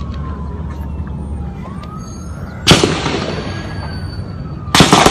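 Outdoor gunfire in an active shootout: one loud gunshot with an echoing tail about halfway through, then more shots in quick succession near the end. A siren wails underneath throughout.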